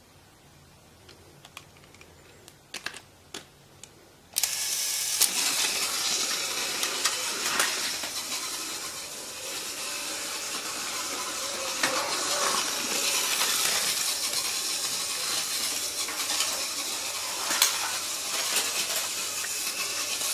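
A battery-powered Plarail toy train running on plastic track: a steady rattling clatter that starts suddenly about four seconds in, after a few light plastic clicks.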